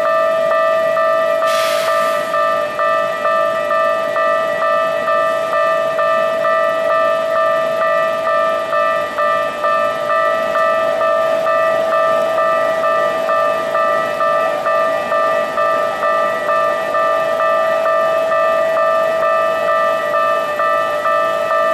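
Japanese railway level-crossing warning bell ringing, its electronic clanging tones repeating in a quick, even rhythm while the crossing is closed for trains. A brief hiss cuts in about two seconds in.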